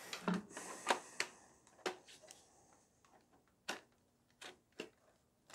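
Handling noise from a plastic gel blaster: a light rustle, then several sharp clicks and light knocks at irregular intervals, most of them in the first two seconds.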